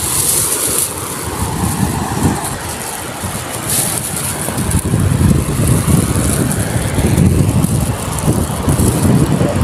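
Wind buffeting the microphone: an uneven low rumble that strengthens about halfway through, with a couple of brief hissing gusts.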